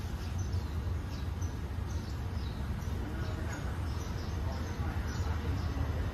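Low steady rumble of a train at the platform, with small birds chirping over it in short, high, falling notes.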